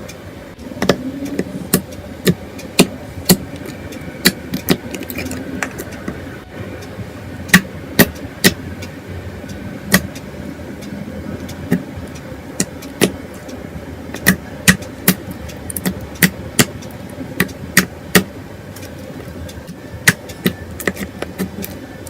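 Freshly made face-mask slime being handled and squeezed, giving many sharp, irregular clicks and pops over a steady low hum.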